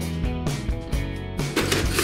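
Background music with a steady beat. Near the end a plastic rustling and clatter comes in, as a hand opens the fold-out body of a toy camper van.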